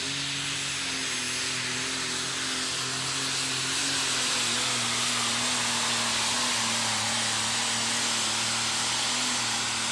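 John Deere super stock pulling tractor's turbocharged diesel engine running flat out, pulling the weight-transfer sled down the track. It is a loud, steady engine note over a wide rushing noise, a little louder a few seconds in, with the pitch sagging slightly around the middle.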